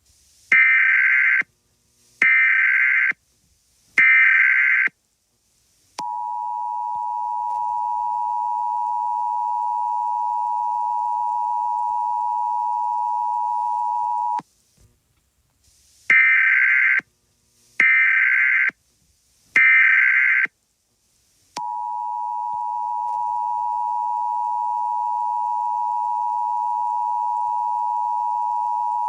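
Emergency Alert System tones. Three short bursts of SAME digital header data are followed by the steady two-tone attention signal for about eight seconds, and the sequence then repeats. This is the signal that opens an emergency alert broadcast.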